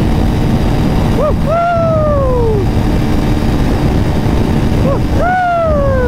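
Wind rushing over the microphone and the Hero Xtreme 200S's air-cooled single-cylinder engine running steadily at about 110 km/h in top gear. Twice a falling hoot sounds over it, about a second in and again near the end.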